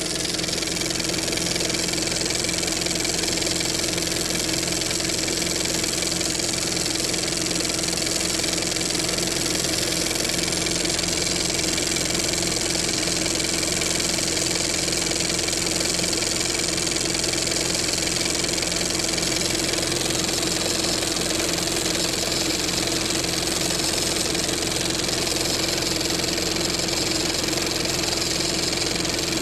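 35 mm film projector running steadily: a constant motor whir with a hum, and the mechanical clicking of the mechanism advancing the film.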